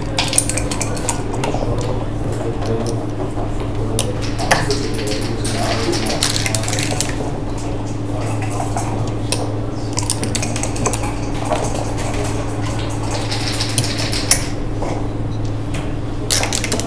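Backgammon checkers clicking and scraping on the board as they are moved, picked up and stacked during the bear-off, in many small irregular clacks over a steady low hum.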